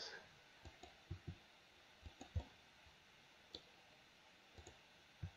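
Faint, irregular clicks of a computer mouse and keyboard, some in quick pairs, against near silence.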